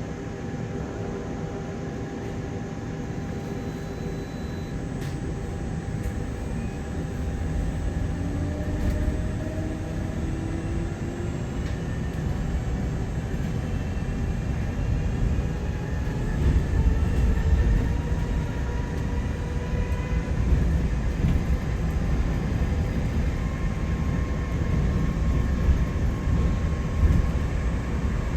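Inside a London double-decker bus on the move: the engine running with a heavy low rumble and whines that rise in pitch as it pulls. It gets louder about 8 seconds in and again about halfway through as the bus picks up speed.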